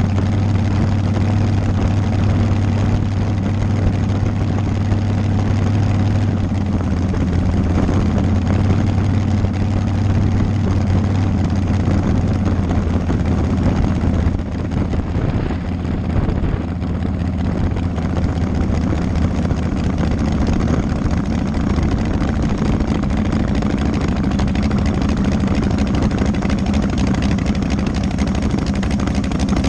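Dragster engine running steadily at low speed, heard from a camera mounted on the car, with a constant low drone. It eases off briefly about halfway through.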